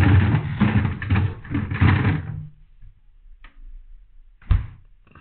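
Refrigerator drawer being slid shut, a rattling slide lasting about two seconds, then a single thump about four and a half seconds in as the stainless-steel fridge door closes.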